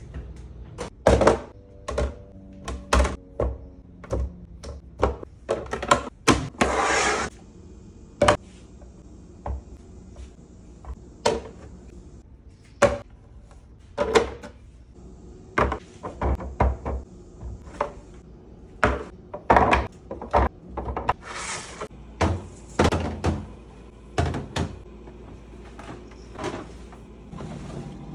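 Clear plastic food storage bins and containers handled and set down in and around an open refrigerator: irregular clicks, knocks and clatter, with a rustling stretch of about a second near seven seconds in.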